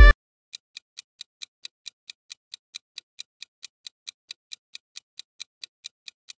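Quiz countdown-timer sound effect: a steady, fast clock ticking, about four to five ticks a second. A music clip cuts off right at the start.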